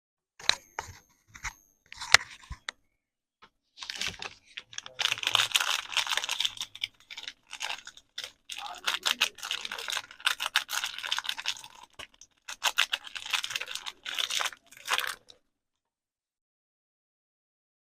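A few light taps, then a soap wrapper being unwrapped: dense crinkling and tearing of the packaging for about ten seconds. It stops abruptly a few seconds before the end.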